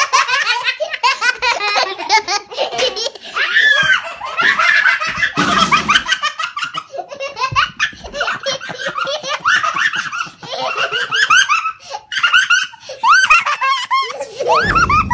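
Young children laughing hard in long, almost unbroken bouts of belly laughter and giggling.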